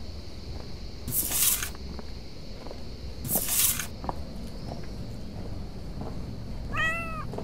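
A cat hissing twice, each hiss a loud breathy burst lasting over half a second, then a short meow near the end.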